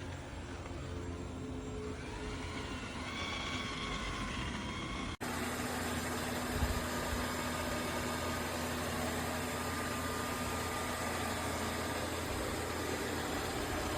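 Roomba robot vacuum running with a steady mechanical hum. About five seconds in, the sound breaks off abruptly and carries on louder and hissier.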